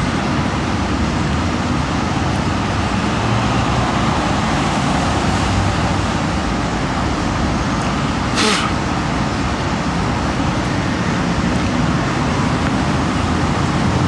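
Steady road-traffic noise, with one brief hiss a little past halfway.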